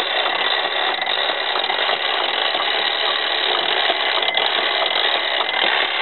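Gamewell fire alarm master box's spring-wound clockwork mechanism running steadily as its code wheel turns after the box has been tripped.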